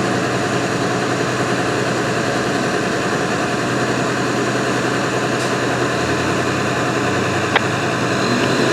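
Steady hiss of radio static with a low hum under it, broken once by a sharp click about seven and a half seconds in.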